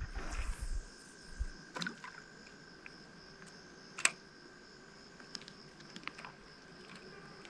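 Crickets trilling steadily in the background, with low bumps and a few sharp clicks of handling close to the microphone, the loudest click about four seconds in.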